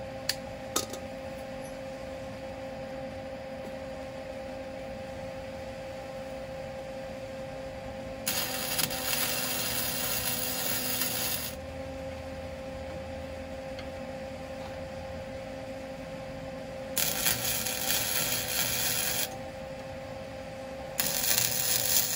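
Flux-core (Innershield) wire welder striking an arc three times, each weld a burst of loud, steady crackling lasting two to three seconds. A steady hum runs underneath, with two sharp clicks in the first second.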